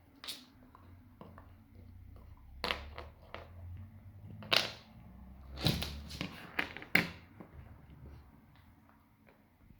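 Golden retriever puppy crunching and knocking an ice cube about: an irregular string of sharp clicks and crunches, thickest and loudest in the middle.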